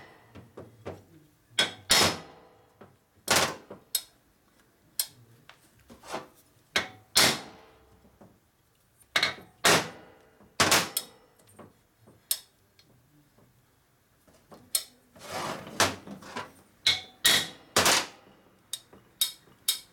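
Small hammer tapping on a 1950 Harley-Davidson Panhead rocker box: a string of sharp metallic taps at irregular spacing, some single and some in quick clusters. The taps are to shift tight dowels so the rocker parts can move freely.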